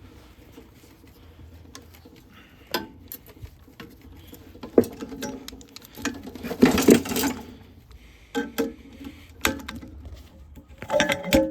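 Tubing cutter worked back and forth in short partial turns on a copper refrigerant line at the compressor, giving irregular metallic clicks and scraping, busiest a little past the middle, with a few sharp knocks near the end.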